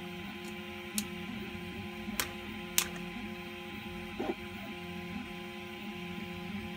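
A 3D printer running steadily, its stepper motors giving a hum of several tones that shift in pitch. Over it, a few sharp clicks and a duller knock from a small screw being driven into a 3D-printed gripper arm with a screwdriver.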